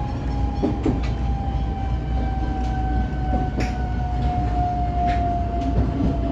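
125 series electric train running, heard from the cab: a steady rumble under a motor whine that slowly falls in pitch as the train slows, with a few light clicks from the track.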